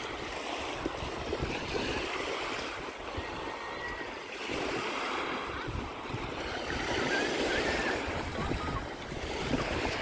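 Small Baltic Sea waves washing up onto a sandy beach and draining back. The steady wash rises and falls every few seconds as each wave comes in.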